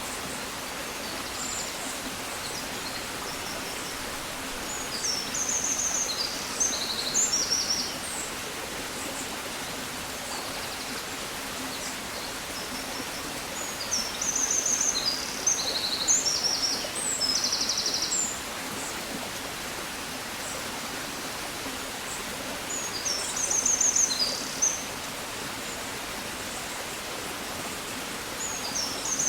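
A songbird singing in repeated phrases of quick high trills and chirps, one phrase about every nine seconds, over a steady hiss of background noise.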